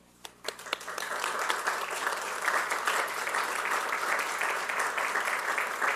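Audience applauding, starting just after the sound begins and building within the first two seconds to a steady round of clapping.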